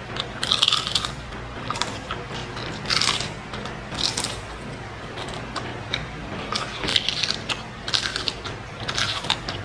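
Crisp crunching of dried fish (daing) being bitten and chewed, in irregular bursts about once a second.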